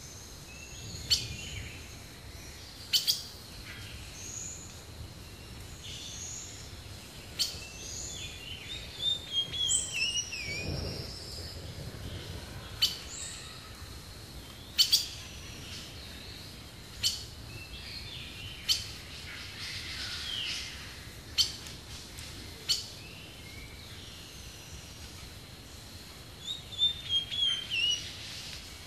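Wild birds calling: sharp single chip notes every couple of seconds, with brief twittering phrases about a third of the way in and again near the end, over a faint outdoor background.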